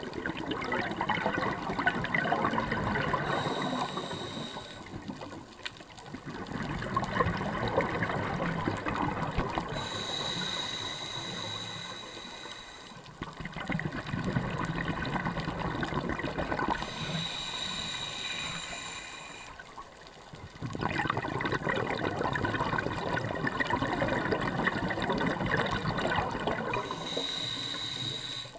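Scuba diver breathing underwater through a regulator, four full breaths. Each breath is a short hissing inhalation with a thin high whistle, then a long bubbling exhalation.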